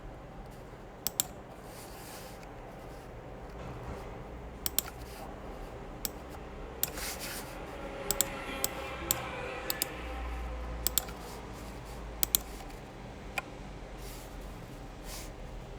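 Small repair tools clicking and scraping against a phone, in scattered sharp clicks with light scratching between them.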